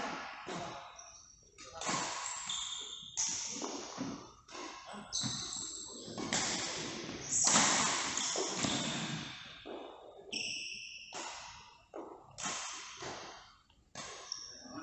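Badminton rally sounds: a string of sharp racket strikes on a shuttlecock at irregular intervals, each with an echoing tail, mixed with short high squeaks of shoes on the court floor.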